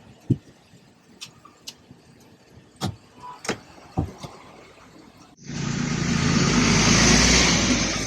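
Car driving on a broken, rough mountain road: for about five seconds a quiet ride with scattered sharp knocks and rattles from the bumps, then it cuts abruptly to a loud stretch of engine and road noise.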